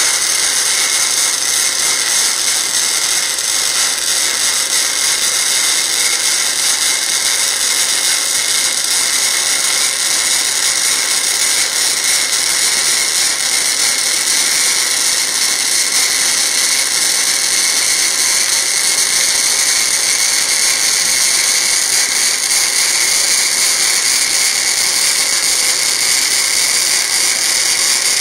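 Flux-core wire-feed welding arc from a Forney Easy Weld 140 FC-i, burning continuously while laying a fillet weld on 10-gauge mild steel: a steady, loud, high hiss with no pauses.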